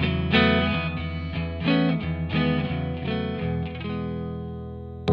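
Electric guitar played through a tube amp: a 1964 Gibson ES-120T hollowbody with its low-output single-coil pickup, into a Fender Deluxe Reverb. It plays a quick phrase of picked single notes, then a held note that fades. A sharp, louder strum comes in right at the end.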